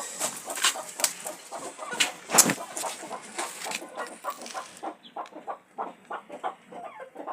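Chickens clucking in a quick series of short calls. A loud hiss and a few sharp clicks run under the first five seconds, then drop away.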